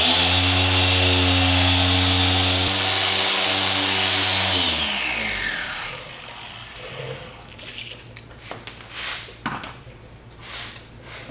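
Griot's Garage dual-action polisher running at a steady speed on a headlight lens, with a hum and a high whine, then switched off about four and a half seconds in and spinning down with a falling whine. After that come a few light knocks and rustles of handling.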